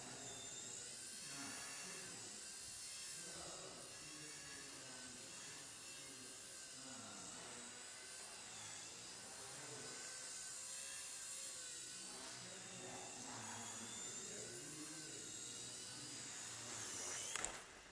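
XK K100 micro RC helicopter in flight: its electric motors and rotors give a high whine that rises and falls in pitch with the throttle, with the odd-noise problem it had now fixed. A couple of sharp knocks near the end, after which the whine stops.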